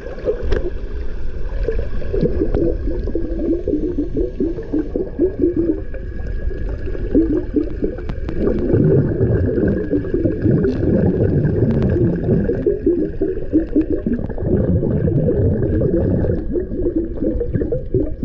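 Muffled water sloshing and gurgling picked up by a camera held underwater, a continuous dull churning sound.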